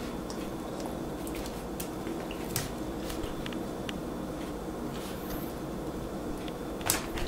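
A senior chihuahua's irregular, unsteady footsteps: scattered light ticks and clicks of claws and paws on carpet and floor tile, over a steady low room hum. The dog is staggering from a loss of balance that its owner attributes to a stroke. The sharpest click comes near the end.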